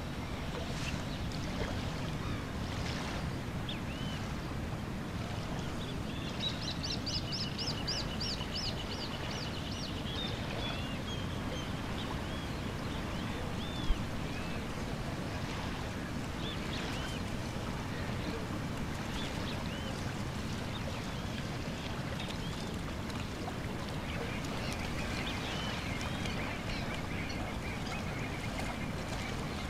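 Open shoreline ambience: a steady low wash of wind and water, with scattered bird calls, including a quick run of repeated chirps several seconds in and a long trill near the end. A single sharp click about halfway through.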